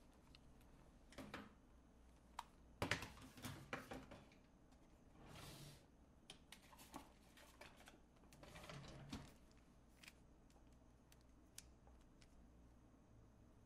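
Faint handling noises from hard plastic objects being put down and picked up: a cluster of knocks and clicks about three seconds in, and two short rustles. Near the end come a few light clicks as a Rubik's cube is turned by hand.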